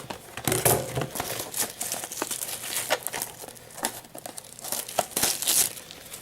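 Plastic shrink-wrap being torn and crinkled off a sealed box of trading cards, an irregular run of crackling and tearing rustles.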